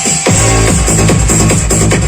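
Electronic dance music with a steady beat, played through a 16-inch speaker driven by a homemade two-transistor amplifier under test. Heavy bass comes in about a third of a second in.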